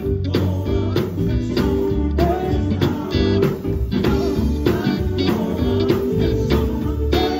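Live gospel band playing: electric guitar, bass guitar and drums, with a singer's voice over them.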